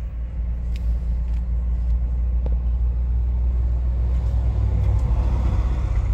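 Low, steady rumble of a car heard from inside the cabin, engine and road noise, swelling slightly near the end.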